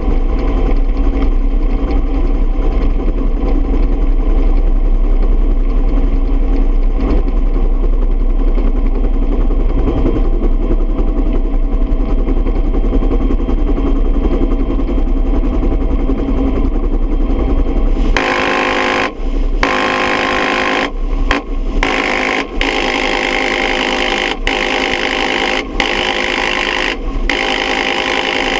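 Bell UH-1 Huey helicopter's turbine and rotor running steadily with a deep hum. About two-thirds of the way in the sound changes abruptly to a harsher, hissier buzz, broken by a handful of brief gaps.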